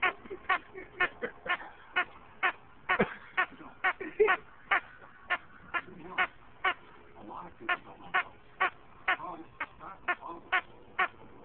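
A squeaky frog chew toy squeaking over and over as a bullmastiff chews on it, about two short squeaks a second.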